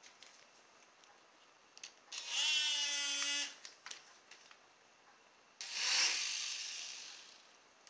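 Small electric rotor motors of a Silverlit Sky-Knight toy helicopter whirring in two short bursts. First comes a steady, pitched whine lasting about a second and a half, then a second whir that starts suddenly and fades away over about two seconds.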